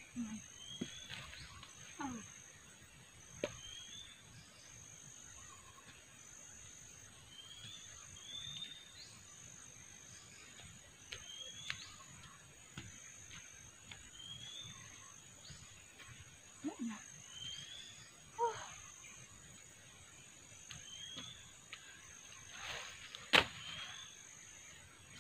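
Hands scraping and pulling at soil and roots, with scattered rustles and small snaps, and one sharp crack near the end. Behind it is a steady high pulsing insect drone and a short rising chirp from a calling animal, repeated every couple of seconds.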